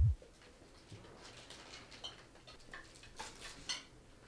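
A deep low boom right at the start, then quiet clinking of cutlery against plates and bowls at a dinner table, with a few light clinks from about two seconds in.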